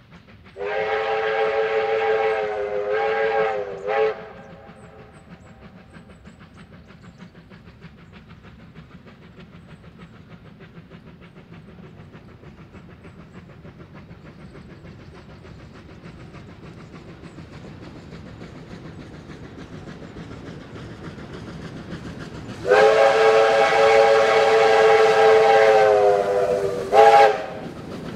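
Steam whistle of the 4-6-4 Hudson locomotive R761 sounding a long blast with a short toot at the end, twice, about twenty seconds apart. Between the blasts, the locomotive's running rumble grows steadily louder as it approaches.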